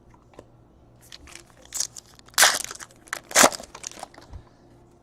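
Crinkling of trading-card pack wrapping being handled, in several short bursts.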